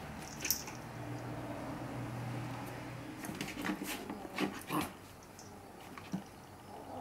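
A Chihuahua puppy and a kitten scuffling on a wooden floor: paws and claws scrabbling and tapping, with one click about half a second in and a quick flurry of taps in the middle.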